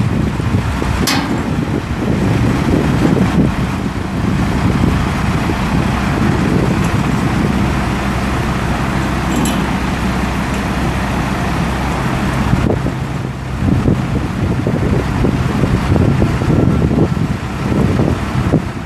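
International DT466 inline-six turbo diesel running steadily, powering the PTO hydraulics as the cable-reel arm lifts the reel, with a light click about a second in.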